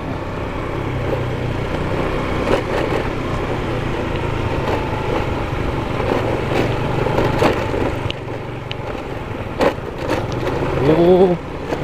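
Motorcycle being ridden over a rough road: the engine runs steadily under wind noise, with scattered knocks and rattles from the bumpy surface.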